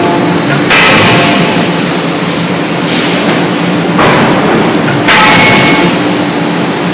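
80 kJ hydraulic forging hammer working: four sudden heavy strokes at uneven intervals, one of them weaker. Each stroke is a loud rush of noise lasting about a second, over a steady machine hum.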